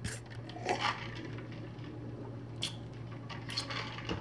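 Faint handling of a small plastic liquid-lipstick tube: a soft squishy rustle about a second in, then a few light clicks in the second half, over a steady low hum.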